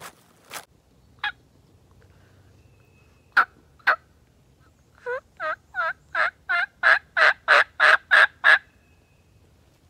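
Turkey yelps: a run of about eleven two-part notes, roughly three a second, growing steadily louder, after a few sharp clicks.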